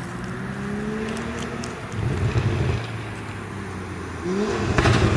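2020 Toyota Supra with a Forged Projects valved exhaust and catless downpipe accelerating, its exhaust note climbing in pitch. It surges louder about two seconds in, revs up again near the end, and ends with a few sharp, loud bursts.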